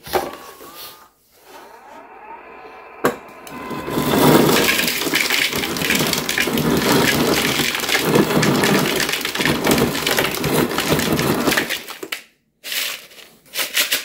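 LG side-by-side refrigerator's door ice dispenser, set to crushed ice, crushing ice and pouring it into a plastic measuring bowl. A click and a short motor hum come first, then about eight seconds of loud crunching and crackling as the chopped ice falls, which stops abruptly near the end.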